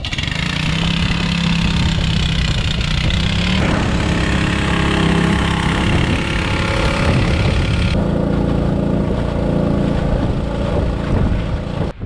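Small engine of a portable water pump running steadily, drawing water out of a tidal pool through its suction hose. Its tone shifts abruptly twice, about three and a half seconds in and again about eight seconds in.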